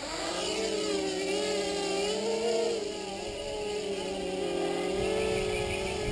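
Gartt Pluto 250 quadcopter's electric motors and propellers spinning up and whining, the pitch wavering up and down as the quad lurches about. The uploader says a motor mount screw had fallen out, which sent the quad out of control. A low rumble joins in near the end.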